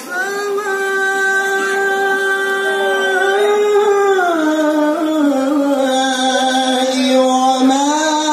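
Male Qur'an reciter (qari) singing a long, ornamented melisma into a handheld microphone. He holds one high note for about four seconds, slides down to a lower note around five seconds in, and turns upward again near the end.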